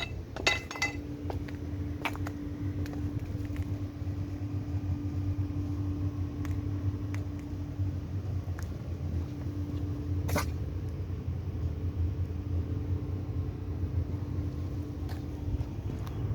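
Steady low machine hum with a held tone. Light metallic clinks ring out in the first second, and a sharp click or knock comes about ten seconds in.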